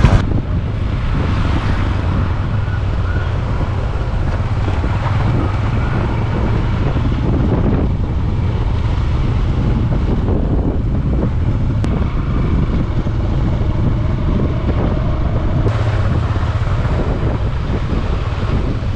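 Motorcycle running at road speed, its engine a steady low drone under heavy wind noise on the microphone.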